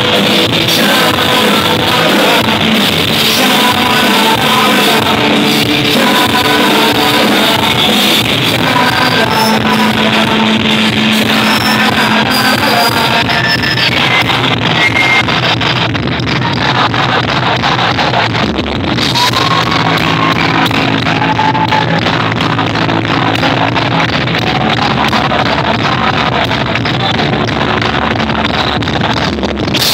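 Rock band playing live: electric guitars, bass and drums, with a man singing into the microphone.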